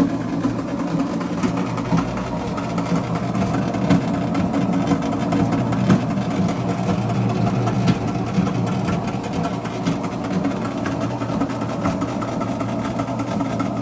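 Homemade clothes dryer running: its drum motor and Chinese diesel air heater make a steady mechanical hum, with a faint knock about every two seconds.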